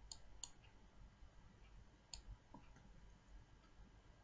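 A few faint computer mouse clicks, scattered and sharp, over near silence.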